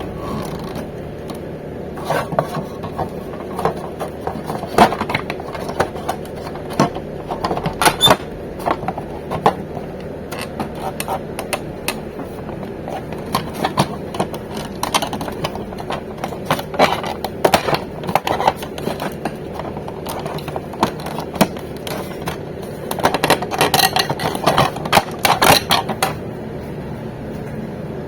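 Irregular clicks and knocks, bunched together near the end, over a steady hum.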